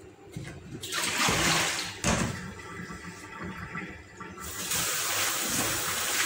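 Water splashing into a stainless steel kitchen sink, with a sharp knock about two seconds in; from about five seconds in the kitchen tap runs steadily over a colander of coriander leaves being rinsed.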